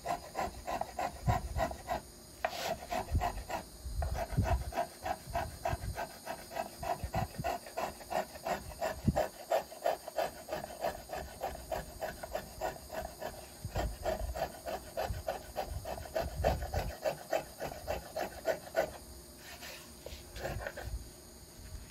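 Small finger plane shaving the wooden arch of a carved violin plate in rapid, short, rhythmic strokes, several a second, smoothing high spots from the arching. The strokes stop about three seconds before the end, and a few lighter ones follow.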